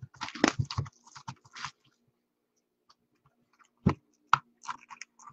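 Irregular crackling and clicks from handling, with a single sharper knock about four seconds in.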